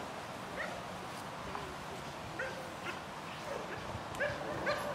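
German Shepherd dog giving a string of short, high yips and whines, coming closer together toward the end, as it heels in eager drive.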